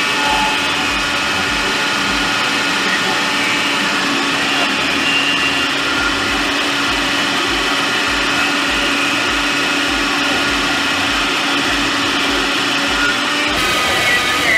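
Prestige Endura 1000W food processor motor running steadily with a whine, its plastic kneading blade mixing flour and water into dough. A low, regular thudding runs beneath the motor sound.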